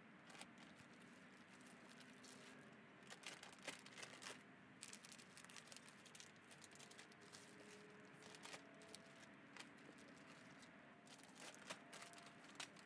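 Faint crinkling and rustling of plastic bags as pieces of sockeye salmon are handled and bagged, with scattered light clicks.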